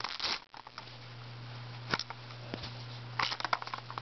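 Handling noise from a plastic toy Omnitrix wrist gadget: a few scattered clicks and rustles, then a quick cluster of clicks about three seconds in, over a low steady hum.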